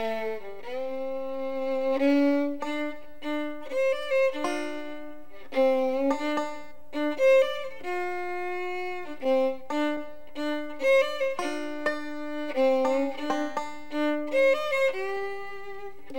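Background music: a fiddle playing a lively tune of held and quick notes over plucked string accompaniment.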